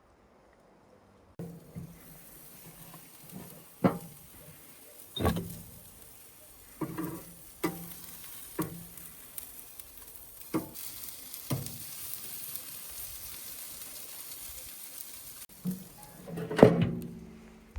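Food sizzling and frying over an open campfire: a steady hiss that grows a little stronger partway through. Over it come about eight separate knocks of a cooking utensil against the cookware, and a louder clatter near the end.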